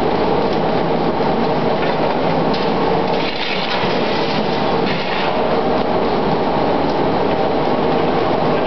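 A line of sawdust briquetting presses running: a loud, steady machine noise with a faint, irregular clatter over it.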